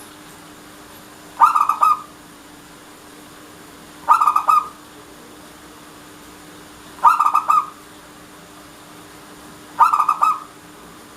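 Zebra dove (perkutut) cooing: four short, quickly pulsed coo phrases, repeated about every three seconds.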